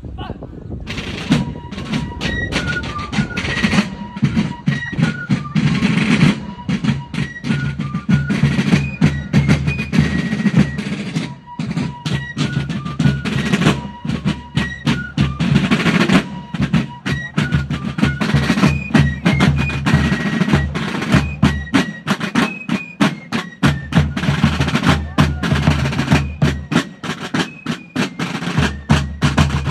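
Fife and drum corps playing a march: fifes carry a high melody over rope-tension field drums beating steady strokes and rolls. The music starts about a second in.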